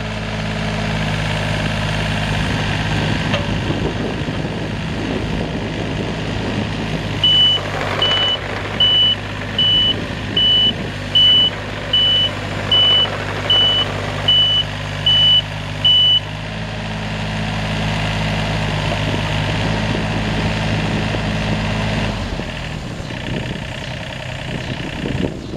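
John Deere 35D compact excavator's diesel engine running steadily as the machine tracks on pavement. For a stretch in the middle its travel alarm beeps about once every 0.7 s, about a dozen beeps. Near the end the engine note drops away.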